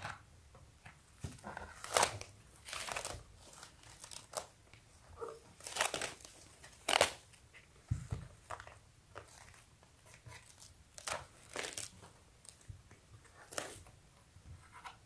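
Thin white packing sheet crinkling and rustling in irregular bursts as a skateboard deck is handled, lifted and turned over on it, with a soft knock about eight seconds in.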